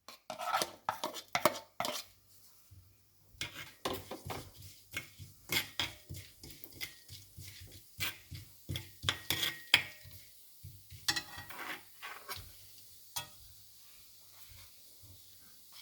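A metal spoon stirring whole spices and fennel seeds in hot sesame oil in a kadai, clinking and scraping against the pan in irregular clusters. It quietens near the end.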